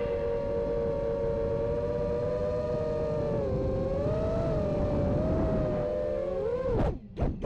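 FPV quadcopter's brushless motors and 5-inch three-blade propellers whining steadily, the pitch wavering slightly with throttle. Near the end the whine drops away as the throttle is cut, followed by a few sharp knocks.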